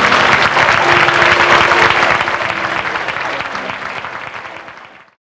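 Audience applauding, the clapping fading out over the last three seconds and cutting off.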